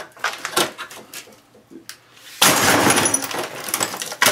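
A few light knocks, then a sudden loud crash about two and a half seconds in as old computer hardware is smashed, with breaking glass and plastic clattering on past the end.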